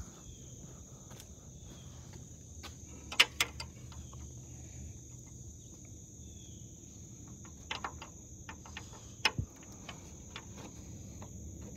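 Steady high-pitched chorus of crickets, with a few sharp clicks and knocks, the loudest about three seconds in.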